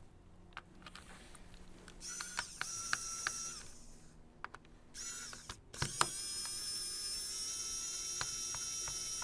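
A small electric motor whining steadily in two runs, a short one of about a second and a half and then a longer one from about five seconds in, each rising briefly in pitch as it starts. Light clicks come in between, with a sharp click about six seconds in.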